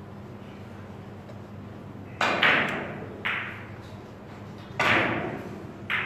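Sharp clacks of billiard balls, about five in the back half, each with a short echoing tail, over a steady low hum.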